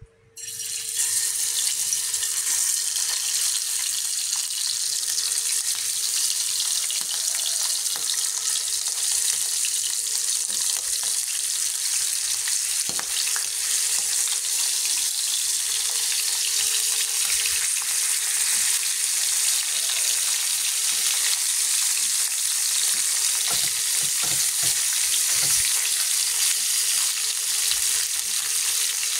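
Whole small catfish sizzling loudly in hot oil in a frying pan. The sizzle starts abruptly about half a second in, as the fish go into the oil, and runs on as a steady frying hiss, with a few light knocks against the pan.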